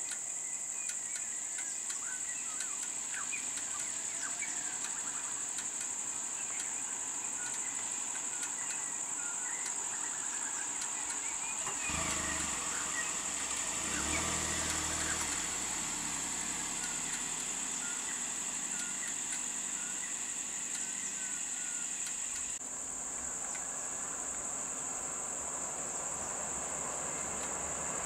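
Steady, high-pitched drone of an insect chorus, with scattered short chirps. A low vehicle engine rumble joins about twelve seconds in and fades a few seconds later.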